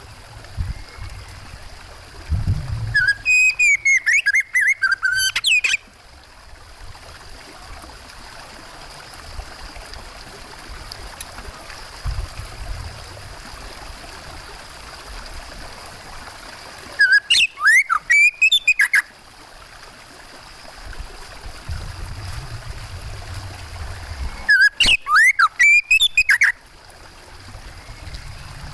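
Oriental magpie-robin singing in three loud bursts of rapid, sliding whistled notes, each about two to three seconds long, over a steady background of running water.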